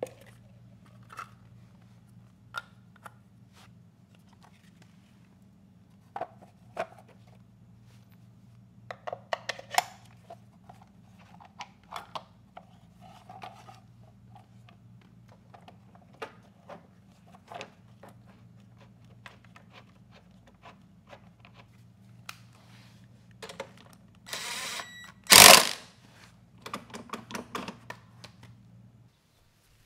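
Clicks and knocks of a replacement plastic mower drive wheel and its parts being handled and fitted onto the axle gear, over a steady low hum. About 24 seconds in, a cordless drill runs briefly, driving in the wheel bolt, with a short loud burst as it finishes.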